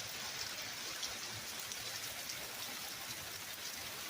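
Heavy rain mixed with hail pouring down: a steady hiss with faint scattered ticks of drops and hailstones striking.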